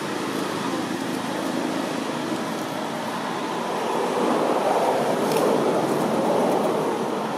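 Steady road traffic noise, swelling about four seconds in as a vehicle passes.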